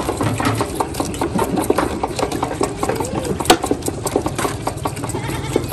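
Several goat kids suckling at once from bottle nipples on a multi-bottle feeding stand: a fast, uneven run of sucking clicks.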